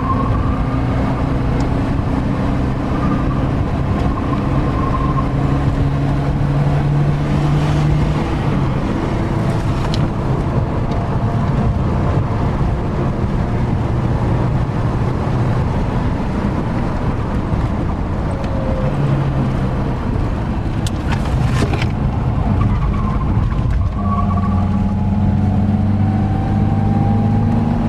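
Car engine and road noise heard from inside the cabin while driving a race track: the engine runs hard, its pitch shifting up and down with throttle and gears, with a few brief high squeals near the start and again near the end.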